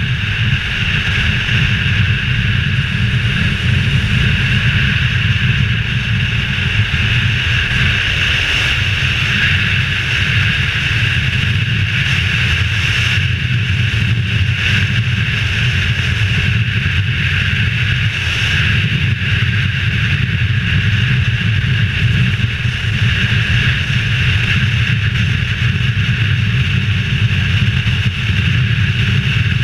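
Adventure motorcycle engine running steadily at cruising speed, heard through a helmet-mounted camera's microphone with wind rush over it.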